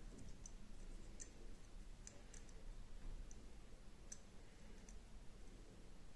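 Faint, irregular small clicks from a combination padlock being handled, about nine over a few seconds.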